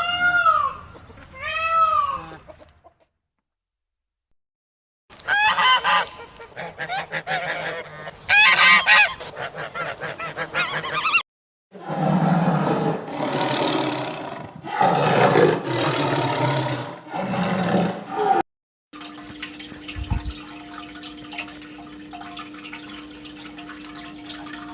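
Domestic geese honking, in several separate short recordings broken by brief silences.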